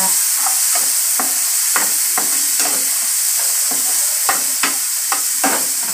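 A spatula stirring and scraping sautéed onions, tomatoes and ginger-garlic in a non-stick frying pan, over a steady sizzle of the frying. The spatula's strokes scrape and tap irregularly, about two a second.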